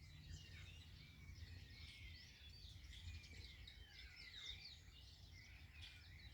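Several songbirds chirping and singing together in quick, overlapping short whistled phrases, over a faint steady low rumble.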